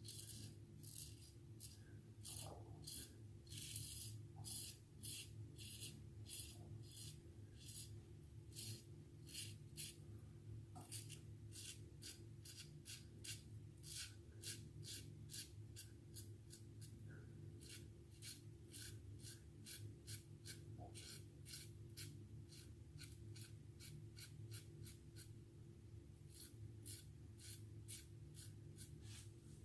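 Double-edge safety razor scraping stubble through shaving lather in quick short strokes, about two a second, in runs with brief pauses. A faint steady hum lies underneath.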